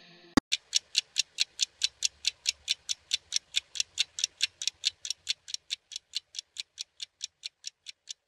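Pendulum wall clock ticking, sharp even ticks about five a second, slowly fading.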